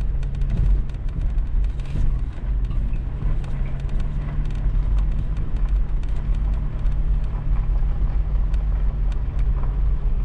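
Toyota 4Runner driving along a dirt Forest Service road: a steady low engine drone with frequent small clicks and knocks.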